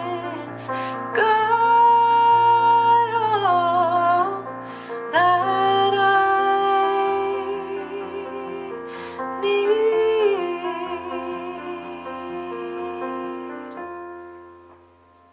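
A woman singing long held notes without words, with vibrato, over sustained keyboard chords: the closing bars of a song, fading out near the end.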